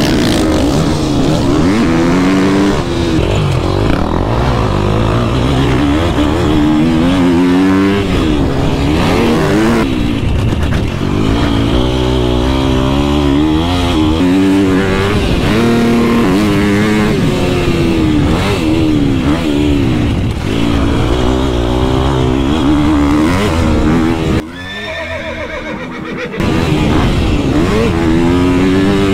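Motocross bike engine revving hard, its pitch climbing and falling again and again through acceleration and gear changes. Near the end the engine drops to a much quieter, lower note for about two seconds, then comes back up.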